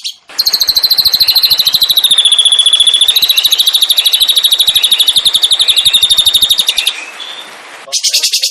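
Songbird singing a long, loud rolling trill of rapid high notes, about ten a second, with softer chirps beneath. It stops about seven seconds in, and another trill starts near the end.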